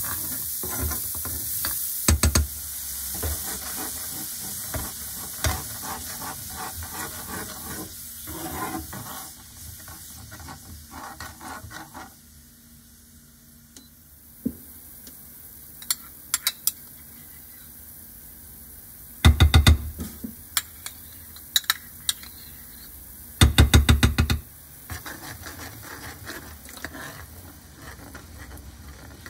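Minced shallots and garlic sizzling in oil in a non-stick frying pan while a metal spoon stirs and scrapes them. After about twelve seconds the sizzle quietens, with liquid now in the pan; two short bursts of sharp rapid clicks follow, the loudest sounds, and then softer stirring of the liquid.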